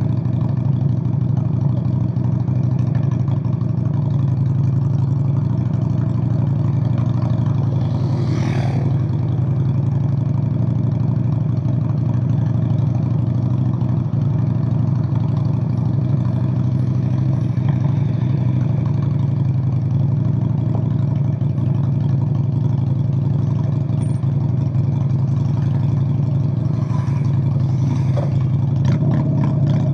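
Straight-piped Honda Shadow VLX 600 V-twin running steadily at an even engine speed, with its exhaust loud and deep. About eight seconds in there is a brief rushing noise, and a few clicks near the end.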